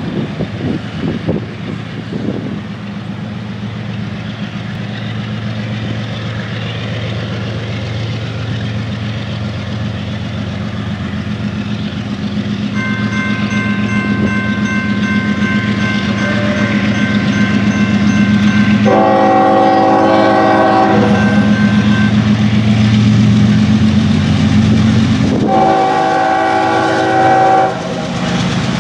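Norfolk Southern GE ES44AC diesel locomotive approaching, its V16 GEVO engine running with a steady low drone that grows louder. A grade-crossing bell starts ringing about halfway through. The locomotive's air horn sounds two long blasts of about two seconds each, one roughly two-thirds of the way through and one near the end.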